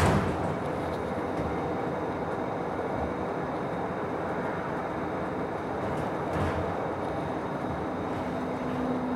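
Cabin noise of a Nova Bus LFS city bus under way: a steady engine and road rumble. A louder rush of noise fades just after the start, and another brief swell comes about six and a half seconds in.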